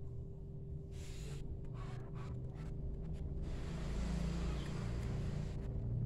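Hands rubbing and sliding over the bare skin of a leg during a calf and foot massage: soft scratchy swishes that come and go several times. A steady low hum runs underneath.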